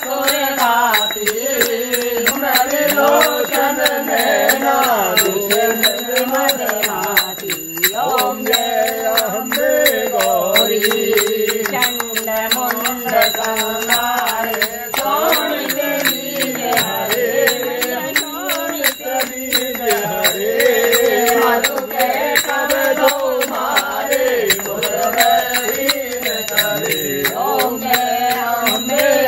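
Voices chanting a Hindu devotional mantra in a continuous, sing-song melody.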